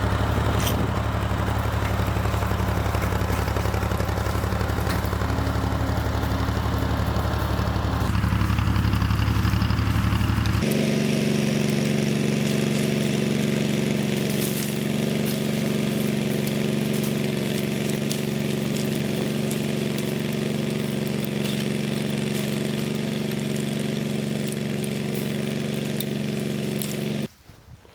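Ford 4000 tractor engine running steadily. About ten seconds in, the sound changes abruptly to a steadier, higher-pitched engine note, which cuts off suddenly near the end.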